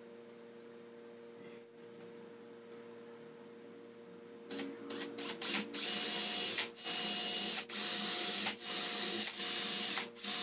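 Cordless drill boring small holes into a plywood panel: a few quick trigger blips about four and a half seconds in, then longer spells of running with a steady motor whine, broken by brief stops about once a second.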